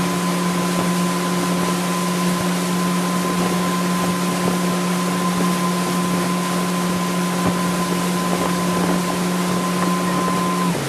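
Tow boat's engine running steadily at speed, a constant drone with a thin steady whine above it, over wind and water rushing past the microphone.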